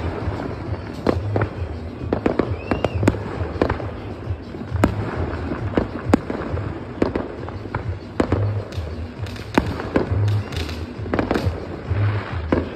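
Many fireworks and firecrackers going off at once, a dense irregular run of sharp bangs and pops near and far. One short whistle rises and falls about three seconds in.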